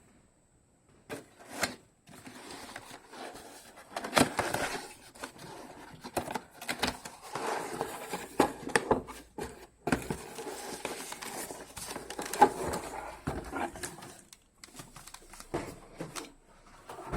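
Handling of a membrane keyboard: irregular clicks and knocks mixed with rustling, with a few louder knocks.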